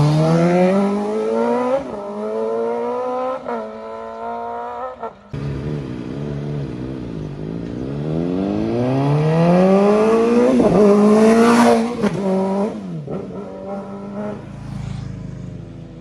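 MV Agusta F4 RC sport bike's inline-four engine accelerating hard, its pitch climbing and dropping through quick upshifts about every second and a half. It then eases off, pulls up through the revs once more, and slows with falling revs near the end.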